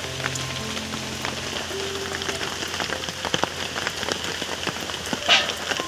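Rain falling steadily on the surface of a pond and on the leaves around it, an even hiss full of small drop splashes. About five seconds in there is one short, higher-pitched sound over the rain.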